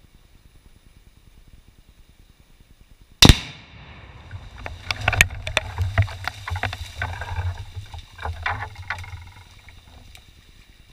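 A 6 lb charge of Tannerite binary explosive detonating in one sharp, very loud blast a little over three seconds in, followed by about six seconds of scattered crackles over a low rumble that fade out.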